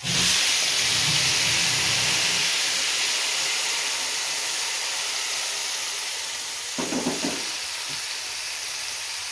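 Blended chili and tomato paste hitting hot oil in a wok, starting with a sudden loud sizzle and slowly dying down as it keeps frying.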